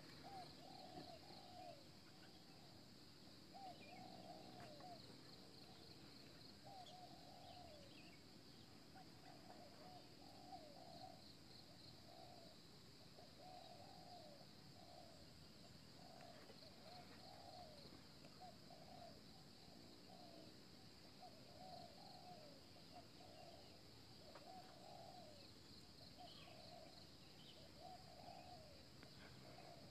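Faint cooing calls of a dove-like bird, repeating in pairs and runs about once a second, over a steady high-pitched buzz.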